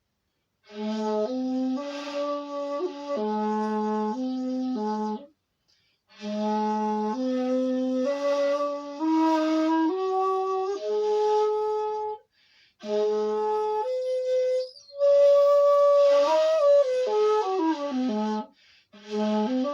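Bamboo flute played solo, a breathy melody in four phrases separated by short pauses for breath. The notes step up from a low note, and the last phrase slides down in a slurred descending run.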